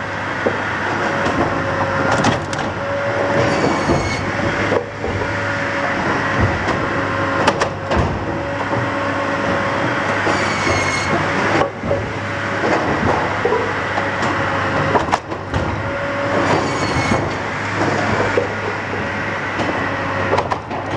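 Firewood processor running: a steady mechanical din with a constant hum, split logs clattering and knocking against the steel chute and conveyor, a few sharp knocks, and short high metallic squeals about every six seconds.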